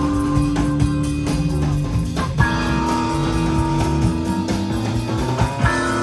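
Live band music over outdoor PA speakers: guitar holding sustained chords that change about every three seconds, over a steady beat.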